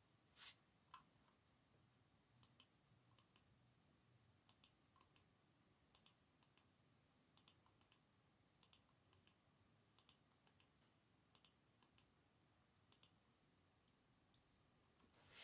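Faint computer mouse clicks from the desktop's right-click menu being opened and Refresh chosen over and over. There are a couple of clicks about half a second in, then quick pairs of clicks roughly every second and a half, and a louder click near the end.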